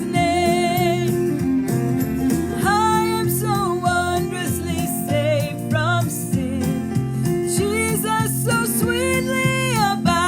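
A woman singing a worship song with vibrato over a strummed acoustic guitar.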